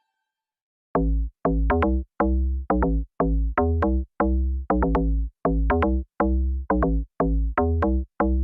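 Electronic background music with a steady beat of bass-heavy notes, starting about a second in after a brief silence.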